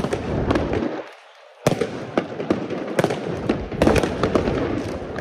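Fireworks going off: a dense, irregular run of bangs and crackles, with a short lull about a second in.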